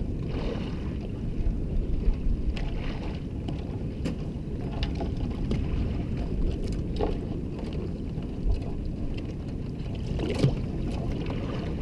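Steady low rumble of wind and water on the microphone around a small boat, with scattered clicks and rattles as crabs are sorted by hand in a wire crab pot.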